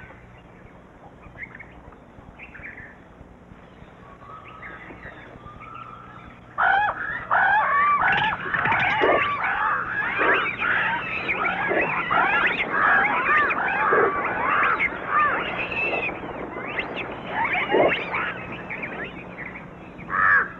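Faint scattered animal calls, then about six and a half seconds in a sudden loud chorus of many overlapping, rising and falling calls that keeps going, like a noisy flock of birds or animals raising a commotion in forest.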